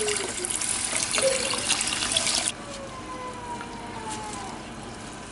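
Kitchen tap running into the sink, turned off about two and a half seconds in.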